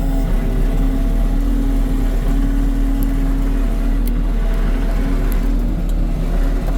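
2015 New Holland skid steer's diesel engine running at a steady speed, with a few faint ticks about halfway through.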